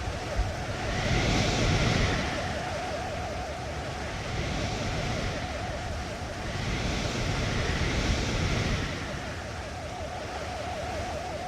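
Rushing surf-like noise over a low rumble, swelling twice like waves washing in and drawing back. A mid-pitched tone wavers up and down a few times a second throughout.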